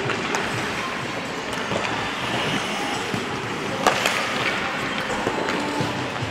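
Ice hockey rink during warm-up: a steady scraping hiss of skate blades on the ice, with scattered clicks of pucks and sticks and one sharp crack of a puck about four seconds in.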